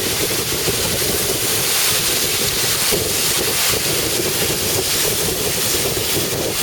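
Pressure washer running steadily, its jet of water hissing against a wall to strip off grime.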